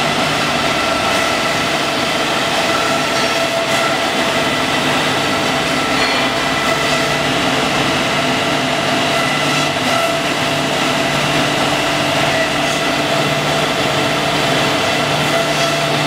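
Automatic abrasive belt flat-plate grinding machine running, its belt heads grinding metal flat bars as they feed through. A loud, steady machine noise with a few constant whining tones throughout.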